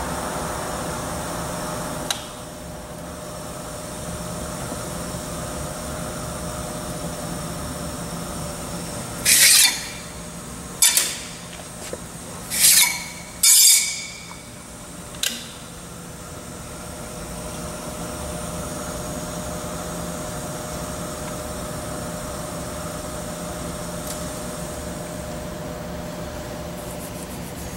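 Blanchard No. 11 rotary surface grinder, with a 15-horsepower spindle motor, running with a steady hum while its wheel grinds metal plates on the rotating magnetic chuck. Near the middle come several short, loud bursts of high-pitched noise.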